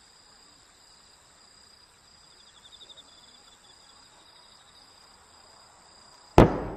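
Faint, steady high chirping of crickets or other night insects, with a brief trill about two and a half seconds in. Near the end a single sharp, loud bang from an aerial firework shell cuts through it.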